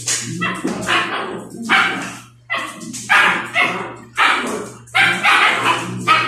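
Dogs barking and yipping repeatedly, about a dozen short, sharp barks in quick succession, as the dogs play rough. A steady low hum runs beneath.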